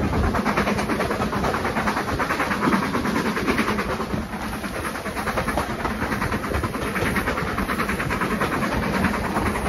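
BR Standard Class 4 2-6-4T tank engine 80136 working hard with its train, a fast, even beat of exhaust and carriage wheels on the track, heard loud from an open carriage window.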